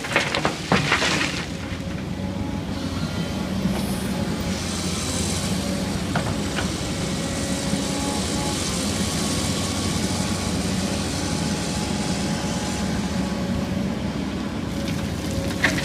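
Heavy diesel engines of an excavator and an articulated dump truck running steadily, with a brief clatter about a second in.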